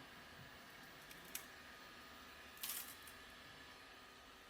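Near silence: faint room tone with a small click about a second and a half in and a brief cluster of soft clicks a little later.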